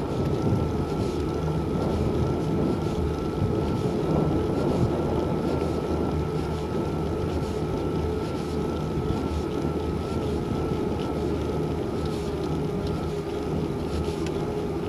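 Steady wind rush and road noise from riding along a tarmac road, with a steady, slightly wavering whine over a low rumble.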